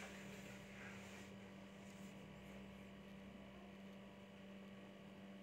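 Near silence with a steady low electrical hum, and a faint rustle of handling in the first second or so.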